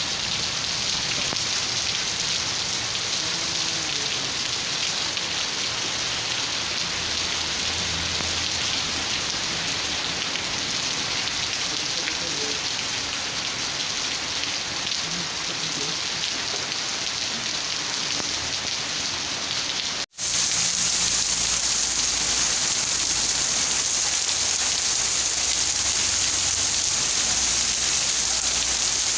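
Steady rain falling on surfaces, a dense even hiss. About two-thirds through it cuts out for an instant and resumes slightly louder and brighter, an edit joining two recordings.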